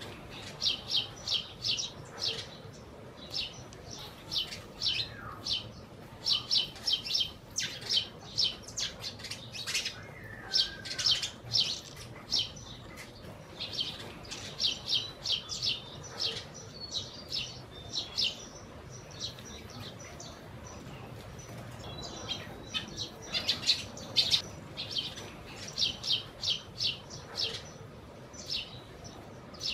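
A flock of sparrows chirping: short, bright chirps in quick runs, many birds calling over one another, with a quieter lull a little past halfway.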